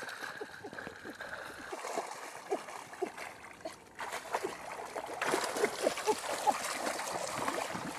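Hands scooping and churning shallow muddy water, with splashing, sloshing and dripping plops, getting louder and busier about halfway through.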